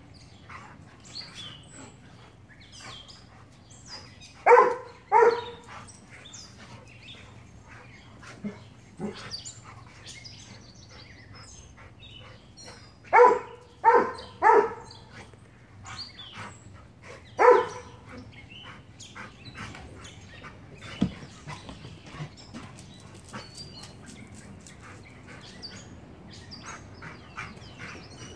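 Dogs play-wrestling, with loud, short barks: two about four seconds in, three in quick succession around thirteen seconds, and one more a few seconds later. Faint bird chirps sound in the background.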